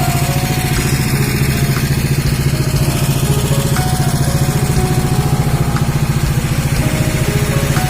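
A small engine running steadily at an even speed, with a low, rapid pulsing hum.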